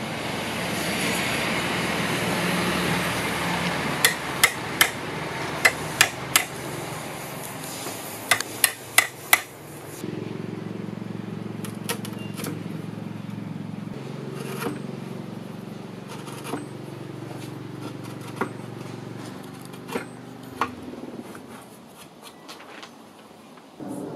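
A claw hammer striking a wood chisel's handle, chopping out a housing in a wooden station mould, in bunches of three or four sharp knocks over the first ten seconds. After that only scattered faint ticks of the chisel paring by hand, over a low steady hum.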